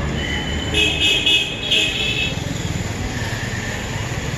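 Busy road traffic running steadily, with a vehicle horn giving a few short honks between about one and two seconds in.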